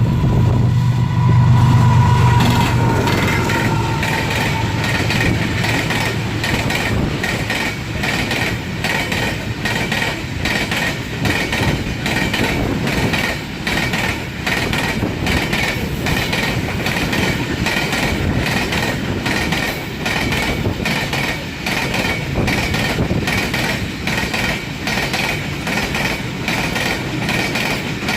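Train wagons rolling slowly over rail joints and track switches: a steady run of evenly spaced wheel clicks, with a steady high tone over it. A low drone in the first couple of seconds fades out.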